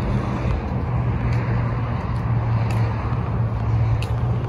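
Steady outdoor traffic noise: a low, even vehicle hum over road noise, with a few faint clicks.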